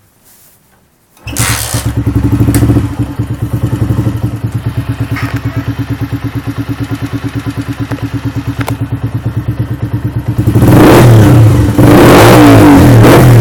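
Honda CG 125 Fan motorcycle's single-cylinder engine, breathing through an aftermarket aluminium Roncar sport exhaust, starts about a second in and idles with a loud, even pulse, briefly blipped a couple of times. Near the end it is revved hard, the loudest part.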